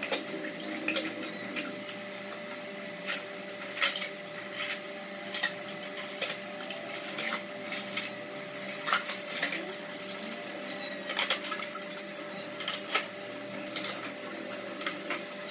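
Steel kitchen utensils clinking and knocking against each other at irregular intervals, sharp light clinks about once a second, over a steady hum.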